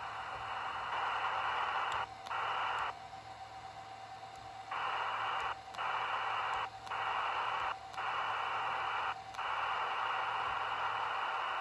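Racal 25 VHF handheld radio's speaker hissing with receiver static and a steady tone. The hiss cuts out briefly about five times, with a quieter stretch a few seconds in, as the radio is stepped through its programmed channels.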